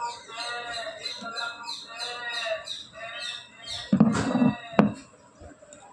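Mixer grinder motor being handled and worked with a screwdriver: a brief clatter about four seconds in, then a sharp click. Behind it, a rhythmic chirping pattern repeats about twice a second.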